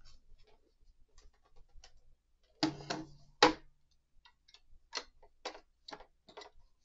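Hard plastic clicks and knocks from an action figure and its display base being handled and set down on a wooden board. There are two louder knocks about three seconds in, then a run of lighter clicks near the end.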